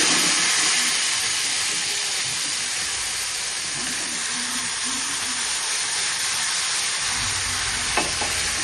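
Curry sizzling in a hot pan: a steady hiss, loudest at first and easing a little, with a brief knock near the end.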